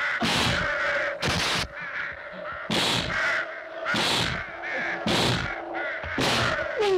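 Film fight sound effects: six loud swishing blow sounds, about one every second or so, as a stick fight goes on, over a steady held tone.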